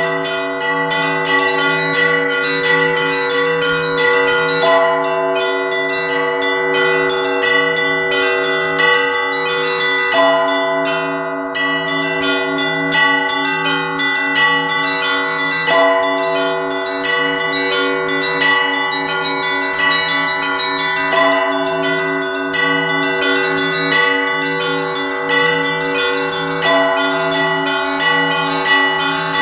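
Church bells hand-rung by a bell-ringer: several bells struck together in a continuous rhythmic peal, their ringing tones overlapping. A low bell sounds in a steady repeating pulse, and the higher bells' pattern changes about every five seconds.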